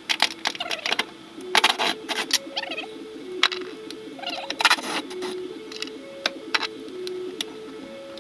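Background music, a simple melody of short held notes stepping up and down, over irregular sharp clicks and clanks from work on the car.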